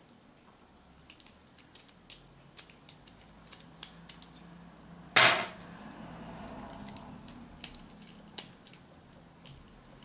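Light metallic clicks of a dimple pick working in a brass Magnum dimple euro cylinder. About five seconds in, a loud metal clatter with a short ring as the round aluminium-handled pick is put down on a wooden table, followed by a faint rolling.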